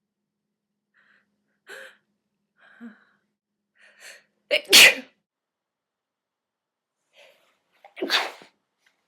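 A woman sneezing during a sneezing fit: a few brief, soft sounds, then a loud sneeze about halfway through and a second, quieter sneeze near the end.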